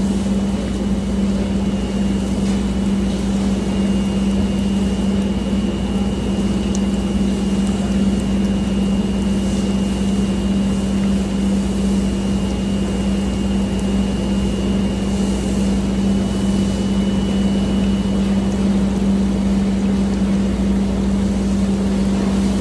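Steady, unchanging machine hum with a low drone and a thin, high steady whine above it.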